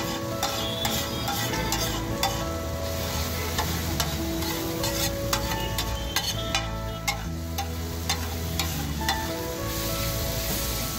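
Steel spatula scraping and tapping on a flat iron tawa, stirring and chopping a chopped onion-and-tomato masala that sizzles as it fries. Sharp metallic clicks come several times a second over the steady sizzle.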